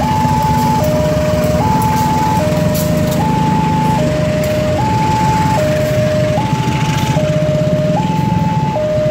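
Level-crossing warning alarm alternating between a low and a high tone, each held just under a second, over the rumble of a passenger train passing over the crossing behind two diesel locomotives. The engine drone eases about four seconds in as the coaches follow, with sharp wheel clicks on the rails.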